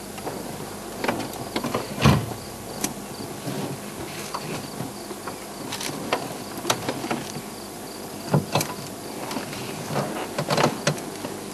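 Handling noise from camera gear and the open safari vehicle: irregular clicks, knocks and creaks, the strongest knock about two seconds in, with insects chirping faintly behind.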